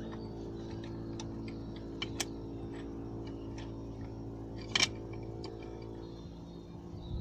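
Light metallic clicks and ticks from hand tools and bolts as the gearbox mount bolts are worked in, about three a second, with a louder rattle of clicks near the middle, over a steady low hum.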